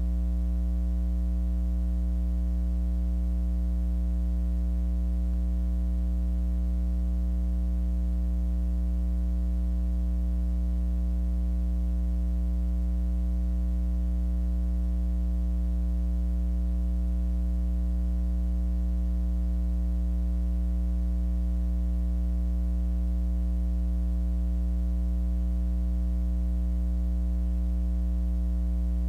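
Steady electrical mains hum: a low, unchanging drone with a stack of overtones. No other sound is heard over it.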